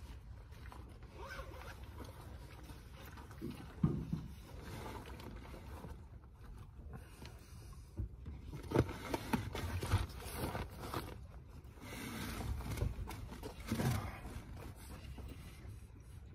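Wind rumbling on the microphone, with irregular bursts of rustling and scraping from a paper-wrapped sandwich being handled, loudest around four seconds in and again through the second half.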